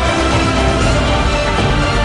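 Loud, steady music with sustained tones over a heavy bass.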